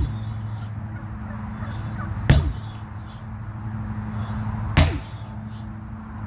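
Two heavy strikes of a 23 lb sledgehammer, about two and a half seconds apart, each a sharp whack with a short ringing tail.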